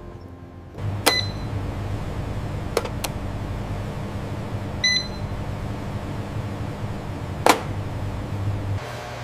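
Steady low machine hum with a few sharp clicks, two of them carrying a short electronic beep, about a second in and about five seconds in.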